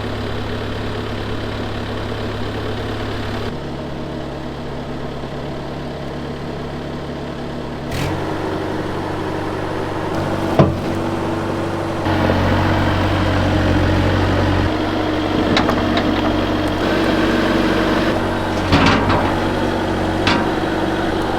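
Bobcat skid steer's diesel engine running, its note and load shifting several times, with a steadier higher tone joining partway and a few sharp clunks, while the balky hydraulic quick attach is being worked.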